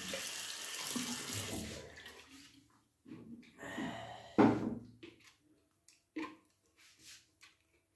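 Water running from a tap, fading out about two seconds in, followed by a few short splashes and knocks, the loudest about halfway through.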